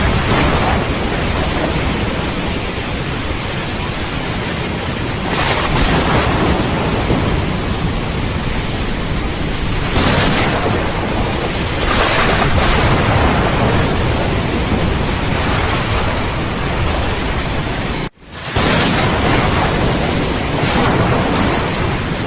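Steady heavy rain with thunder rumbling, the noise swelling louder several times. The sound drops out for a split second about three quarters of the way through, then resumes.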